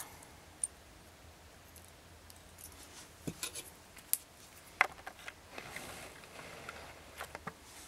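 A few scattered light metal clicks as jewelry pliers pick up and grip small metal jump rings.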